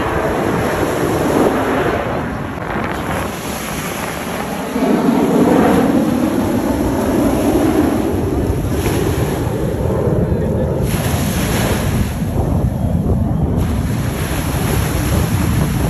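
Wind buffeting the phone's microphone over waves washing around the camera, with a deep steady rumble building about five seconds in.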